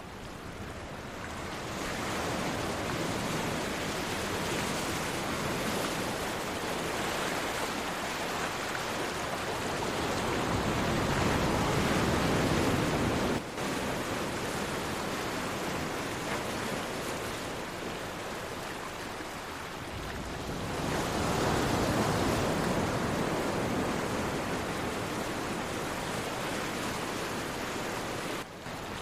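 Sea waves washing onto the shore in a steady rush, swelling into two larger surges, one around the middle and another about two-thirds of the way through.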